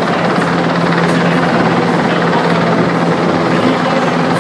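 Military helicopter in flight, its rotor and turbine making a loud, steady noise.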